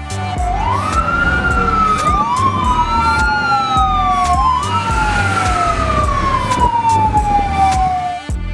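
Two fire engine sirens wailing and overlapping, each pitch rising quickly and then falling slowly, over and over.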